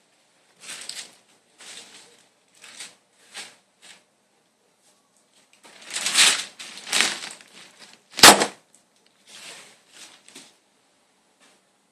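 Scattered short rustling and handling noises, with one sharp click or knock about eight seconds in.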